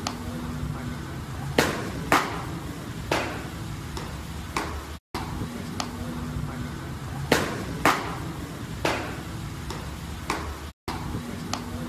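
Fastballs smacking into catchers' leather mitts in a bullpen: sharp pops that ring on briefly, two loud ones about half a second apart and then a softer one. The same short sequence comes twice.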